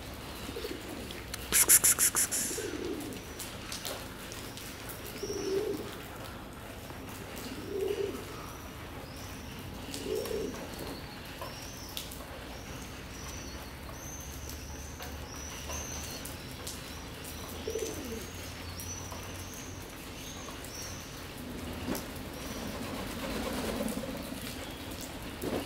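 A pigeon cooing repeatedly, a low coo every two to three seconds, with small birds giving a run of short high chirps in the background through the middle. A brief loud clatter about two seconds in is the loudest sound.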